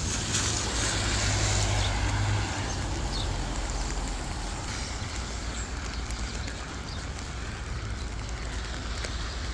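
Rain and traffic noise on a wet city street: a steady hiss over a low rumble, with a vehicle's tyres hissing past louder for the first two seconds or so.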